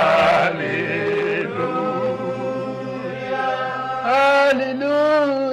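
Slow worship singing with long held notes that waver gently.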